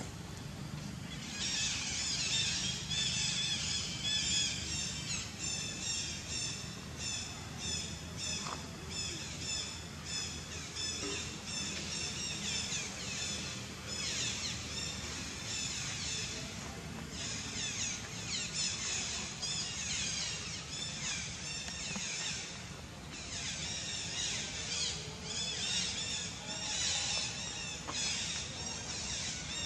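A chorus of birds chirping: many short, high calls with falling pitch, repeated rapidly and densely from about a second in, over a low steady hum.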